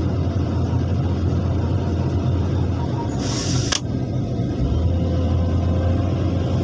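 An excavator's diesel engine runs steadily with a low drone, and a brief hiss of about half a second comes a little over three seconds in.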